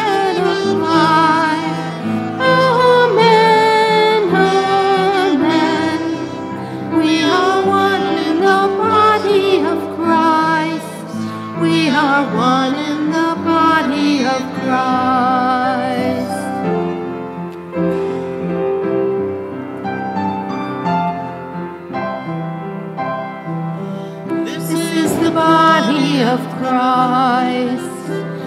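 A communion hymn sung with vibrato over instrumental accompaniment; the music grows softer about halfway through.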